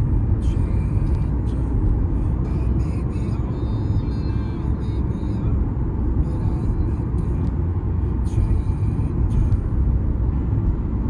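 A car being driven along a road: a steady low rumble of engine and tyre noise.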